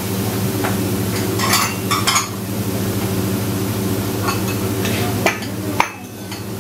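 Offal and udon noodles sizzling steadily on a hot flat-top teppan griddle over a steady low hum. Ceramic bowls and chopsticks clink a few times, about one and a half to two seconds in and again near the end.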